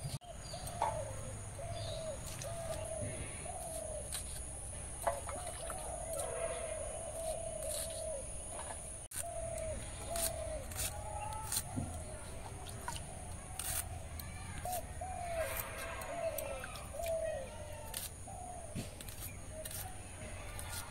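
Birds calling in a long run of short, repeated chirping notes, over a steady high-pitched hiss and scattered faint clicks.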